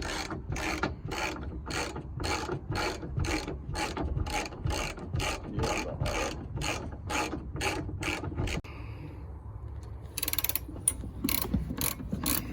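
Hand socket ratchet clicking in steady, even strokes, about three a second, driving a bolt; it pauses for over a second about two-thirds of the way through, then resumes at a quicker pace.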